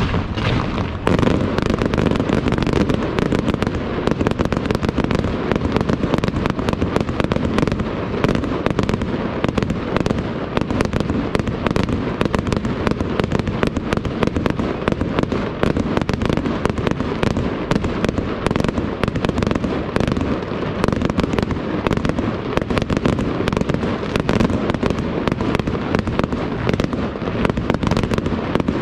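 Aerial fireworks going off in a dense, unbroken barrage: many bangs and crackles a second, thickening about a second in.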